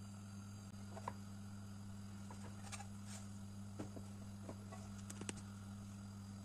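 A few faint, scattered clicks and light taps of a slotted spatula and non-stick frying pan as a cooked flatbread is lifted out, over a steady low hum.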